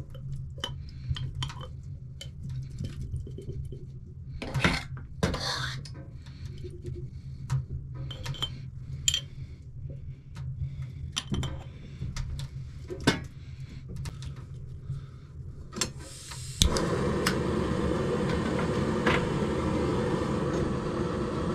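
Scattered clinks and knocks of a utensil against a pot and a bottle. About three-quarters of the way through, a sharp click, and a canister gas stove's burner lights and hisses steadily.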